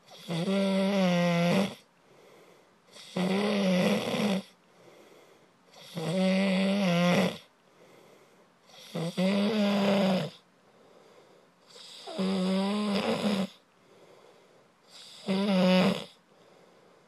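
A person snoring in a steady rhythm: six long, pitched snores, each lasting about a second and a half and coming about every three seconds, with quiet gaps between.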